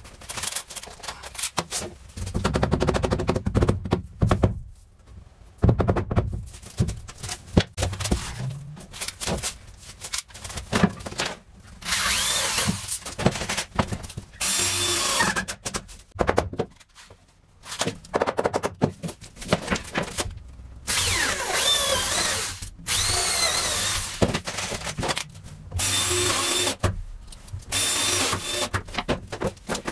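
Cordless drill run in about six short bursts of one to three seconds, its motor pitch rising and falling, driving into 2x4 wall framing. Wooden knocks and thumps of lumber being handled come before the first burst, in the first ten seconds or so.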